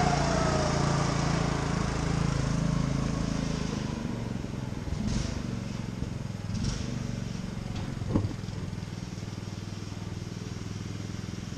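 Small engine of a riding lawn mower running steadily, dropping to a lower level about four seconds in. A few short knocks break in, the loudest about eight seconds in.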